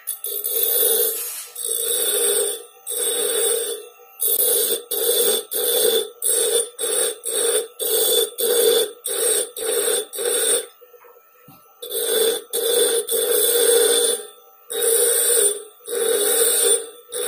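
Bench grinder wheel grinding the bevel of a hardened Japanese plane blade, pressed on in short passes that start and stop about twenty times, each a hiss over a steady tone, with a break of about a second about two-thirds of the way through. The bevel is being shaped to a rounded (cambered) edge for a scrub plane.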